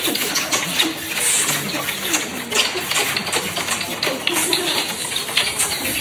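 Continuous wet kissing: many lip smacks and mouth clicks in quick succession, with soft murmuring from the voice underneath.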